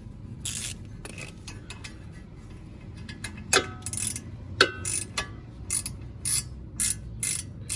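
Hand ratchet clicking in slow, separate strokes as it turns a brake caliper bolt in, with sharp metallic ticks every half second to a second.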